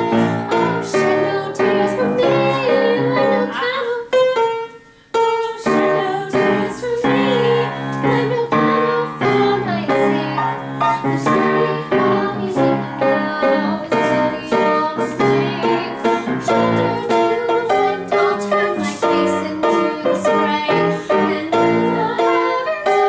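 Piano playing a slow song accompaniment, with a woman's singing voice in places. The music breaks off for a moment about five seconds in, then carries on.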